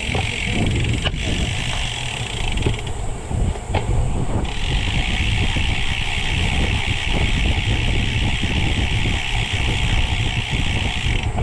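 Wind buffeting the microphone and road rumble while riding a bicycle. A steady high-pitched buzz runs over it, breaks off for about a second and a half early on, then returns and stops just before the end.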